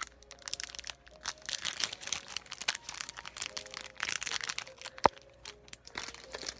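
Crinkly plastic wrapper of a trading-card booster pack being handled, rustling and crackling irregularly with many small clicks. A single sharp tap about five seconds in is the loudest sound.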